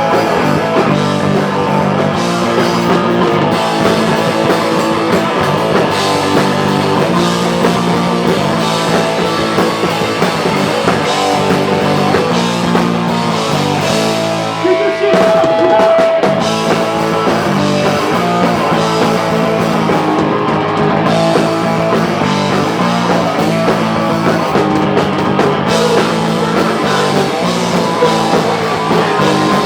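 A live rock band plays loudly with electric guitars and a drum kit. About halfway through, the drums drop out for a moment while a single held high note rings, then the full band comes back in.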